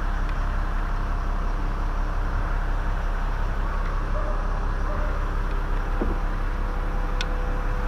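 An engine running steadily at idle, with a low, even hum.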